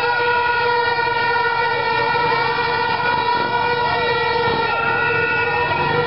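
A horn held on one steady, unbroken note through the whole stretch, loud over the shouts of a crowd in a street procession.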